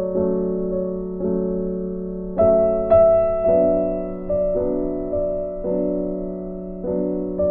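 Background piano music: soft chords struck about once a second, each ringing and fading before the next, with a brighter high note about two and a half seconds in.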